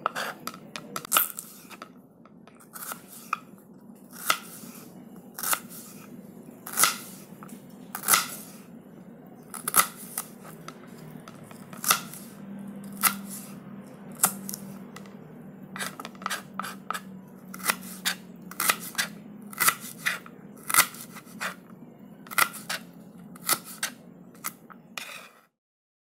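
A knife cutting through an onion: a long run of short, sharp slicing strokes at an uneven pace, roughly one a second and closer together in the second half, over a faint steady low hum. The cutting stops just before the end.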